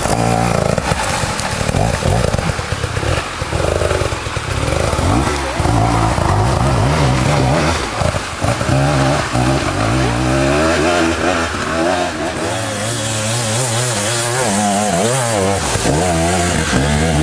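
Hard enduro motorcycle engines revving up and down in short bursts over and over, the pitch rising and falling as the throttle is worked.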